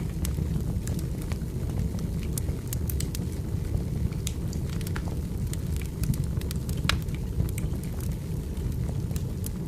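Firewood burning and crackling: irregular sharp pops and snaps over a steady low rumble of the fire.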